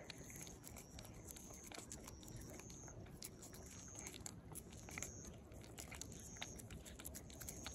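A cat licking and chewing a paste treat squeezed from a tube: faint, irregular wet clicks and smacks of tongue and mouth.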